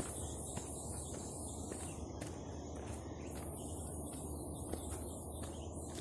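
Footsteps climbing stone stairs, about two steps a second, over a steady high-pitched insect chorus that drops out briefly a couple of times.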